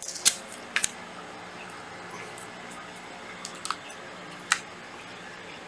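A few light clicks and taps from handling small objects, over a steady low room hum.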